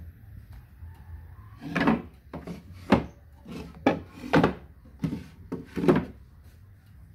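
Small drawers of an old carved wooden cabinet pulled open and pushed shut by hand: a string of wooden slides and knocks starting about two seconds in, a few of the knocks sharp.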